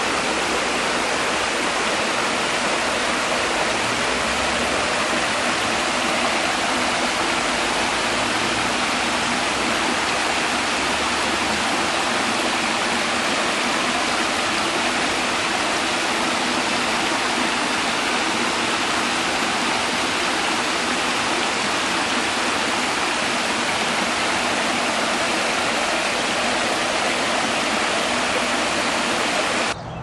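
Shallow river water rushing and splashing over a small cascade of layered rock ledges, a steady, unbroken rush. It cuts off suddenly right at the end.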